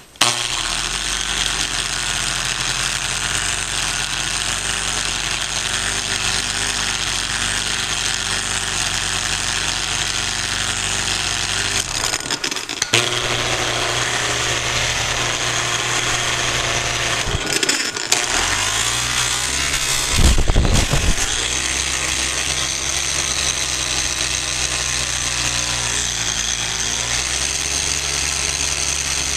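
A 4.5-inch angle grinder spins a wool buffing pad over granite, running steadily while it polishes compound into a repaired chip. Around the middle it briefly drops out twice, and soon after a louder low rumble flares for about a second.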